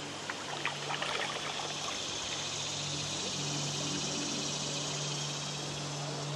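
River water trickling and dripping off a canoe paddle as it is lifted from the water, a cluster of small splashes in the first two seconds, over a steady hiss of moving water and a low hum.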